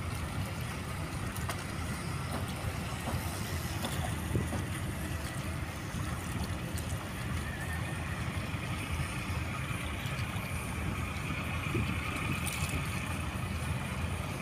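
Inboard engine of a wooden cantrang fishing boat running steadily as the boat motors into harbour, heard as a low, even rumble across open water.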